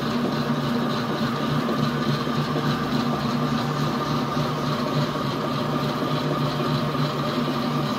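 Electric stand mixer running steadily at high speed, whipping egg whites, with a constant hum. The machine vibrates against an unsteady table.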